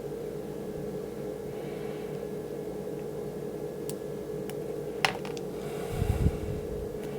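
A few small sharp clicks of hard plastic action-figure parts being handled and worked apart, the loudest just after five seconds in, then a short low thump near the end. A steady hum runs underneath.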